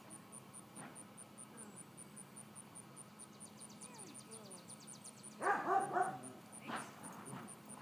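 Miniature dachshund puppy yipping: a quick burst of several high, short yips a little over five seconds in, then one more about a second later.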